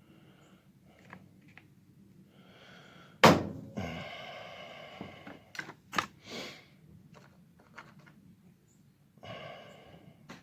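A single sharp thunk about three seconds in, followed by a few small clicks and knocks from handling hand tools and small metal parts while fitting a picatinny rail to a rifle, with breathy exhales between.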